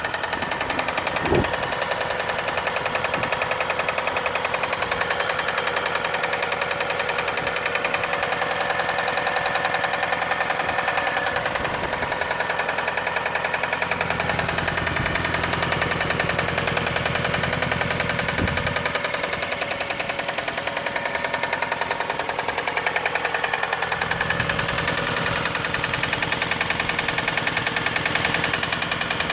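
Hyundai NF Sonata engine running with a rapid, even knocking, the sound of an engine failure.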